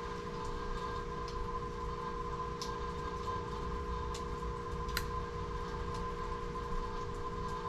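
Small, faint clicks of tweezers and plastic parts as a ribbon-cable connector is eased out of a compact camera's screen, a few ticks spread over several seconds. Under them runs a steady hum of room equipment.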